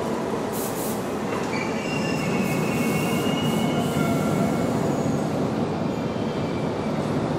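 Subway train running at the platform: a steady rumble with thin, high-pitched wheel squeals that come and go from about a second and a half in.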